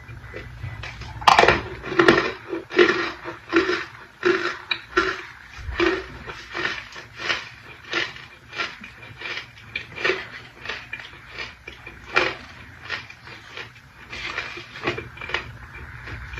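Close-miked crunching and chewing of a dry, chalky mineral, with sharp crunches one to two times a second, loudest a little over a second in and then continuing more softly.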